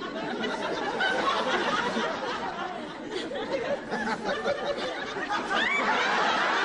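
A large audience laughing, swelling over the first second and carrying on strongly throughout.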